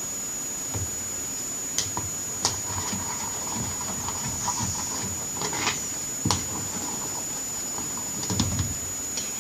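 Scattered soft knocks, clicks and low thumps of hands working slime ingredients in a bowl, with a small cluster near the end. Under them runs a steady hiss with a constant high-pitched whine.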